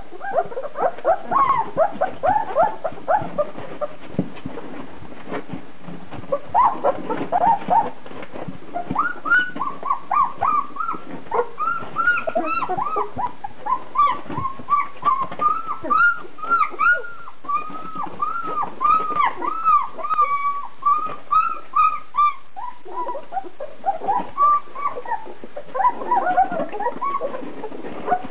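A litter of two-week-old German shepherd puppies whimpering and squeaking as they nurse: a continuous stream of short, high squeals, several a second, densest through the middle.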